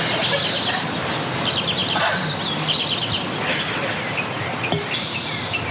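Outdoor ambience of insects and birds chirping, with repeated short high trills over a steady hiss.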